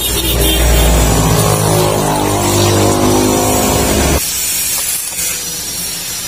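Stick arc welding on a steel exhaust pipe joint: the arc crackles over a steady low buzz from the welding machine, then cuts off abruptly about four seconds in, leaving a fainter hiss.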